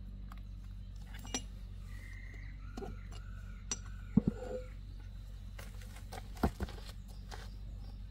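Metal parts and hand tools clinking and knocking, a few sharp knocks with the loudest about four seconds in and again a couple of seconds later, over a steady low hum. Some faint short high chirps come in the middle.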